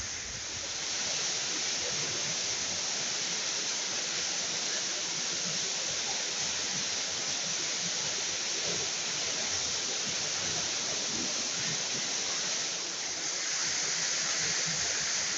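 Steady rush of falling water from a waterfall crashing onto pebbles, getting slightly louder about thirteen seconds in.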